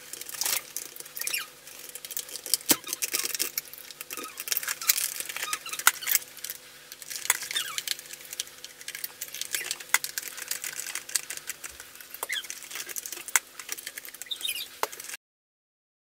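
Sped-up clicking and clattering of plastic parts as a Dyson cordless stick vacuum's clear bin and battery pack are handled and fitted back together, played at five times speed, with short high squeaky chirps among the clicks. The sound cuts off about a second before the end.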